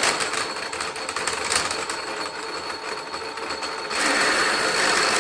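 Mains-powered willow-rod splitting machine running, a steady motor hum with a thin high whine, as willow rods are fed through and split lengthwise into strips. The rods rasp through the cutters, with a few sharp clicks early on and a louder stretch of rasping starting about four seconds in.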